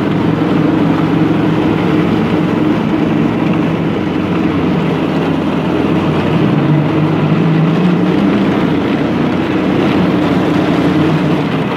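A custom off-road go-kart's small engine runs steadily as the kart drives slowly over grass and dirt, its pitch wavering a little.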